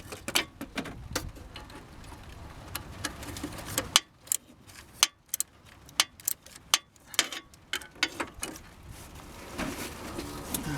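Irregular metallic clicks and knocks of a wrench turning the alternator's tensioning bolt, drawing the alternator back to tighten its belt.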